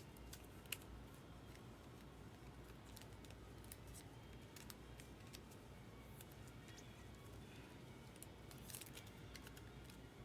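Near silence with faint, scattered clicks and flicks of trading cards being handled, sorted and slid apart, a few quick ones together near the end.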